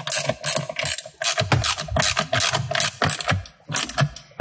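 Hand socket ratchet clicking as it is swung back and forth to undo the 10 mm bolts holding the automatic gear selector assembly. The clicks come in quick runs with short pauses between strokes.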